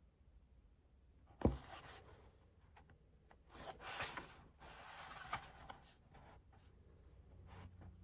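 A single knock about a second and a half in, as of something set down on a desk. Then a few seconds of paper rustling and rubbing from handling a book's pages.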